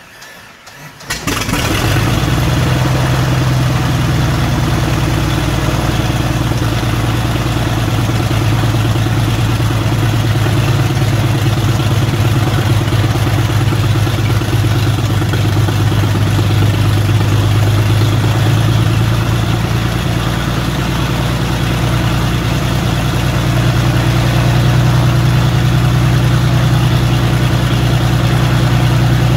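A 1954 Cessna 180's Continental O-470 six-cylinder piston engine being cranked and catching about a second in, then idling steadily. It runs a little louder in the last few seconds.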